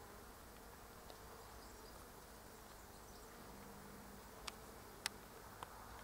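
Faint buzzing of bees among almond blossom, with two sharp clicks about half a second apart near the end.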